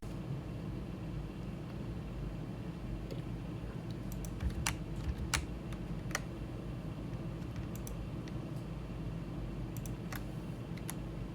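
Scattered computer keyboard and mouse clicks, a handful of separate sharp taps with three louder ones close together around the middle, over a steady low hum.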